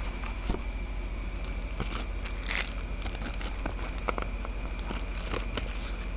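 Keyboard packaging being handled and unwrapped: plastic and paper crinkling and rustling, with scattered light clicks and taps. A steady electrical hum runs underneath.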